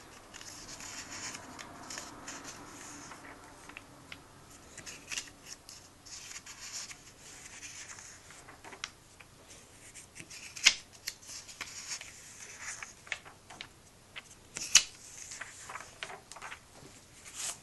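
Pages of a paper comic book being turned and smoothed flat by hand: steady paper rustling and rubbing with small crackles, and two sharp, louder paper snaps in the second half.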